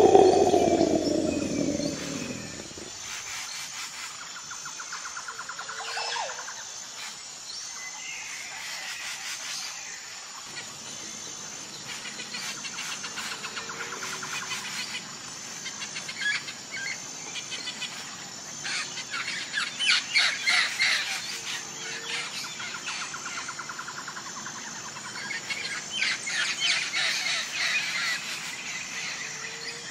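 A tiger's roar fades out over the first two seconds, then birds chirp and call throughout, with bursts of rapid harsh calls about twenty seconds in and again near the end.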